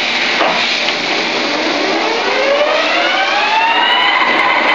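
Geared headstock of a 1973 LeBlond 4025 heavy duty engine lathe running with a gear whine that rises in pitch over about two seconds and then holds steady, as the spindle speeds up to a higher speed setting.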